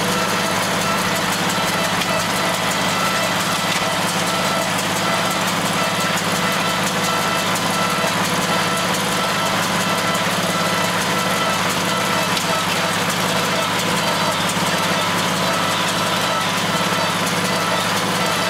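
John Deere tractor engine running steadily under load while pulling a hay baler.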